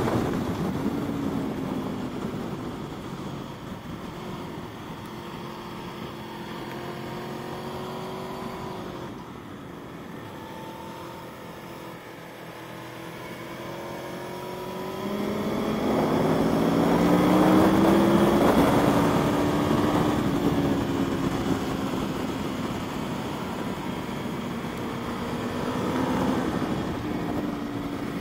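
Aprilia Tuono V4 sport bike's V4 engine at speed on a racetrack, over a steady rush of wind. Its pitch rises and falls with throttle and gear changes. It eases off about a third of the way in and pulls hardest, rising in pitch, just past halfway.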